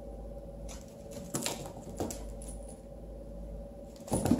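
Light taps and skittering of a kitten's and a small dog's paws and claws on a hardwood floor during play, with a few louder taps near the end.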